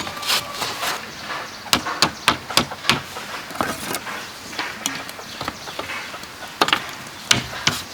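Bamboo being worked with a hand tool: a series of irregular, sharp knocks and chops, with two louder strikes near the end.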